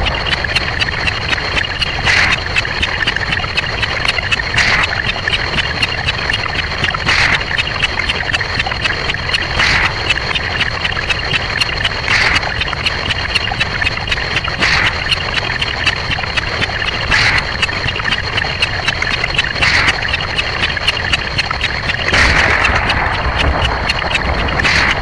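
A dense, continuous stream of very rapid clicks: counting sound effects sped up 256 times so that they blur together, with a louder swell about every two and a half seconds.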